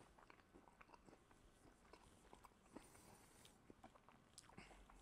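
Very faint chewing of a mouthful of paella rice: soft, scattered mouth clicks with the mouth closed, otherwise near silence.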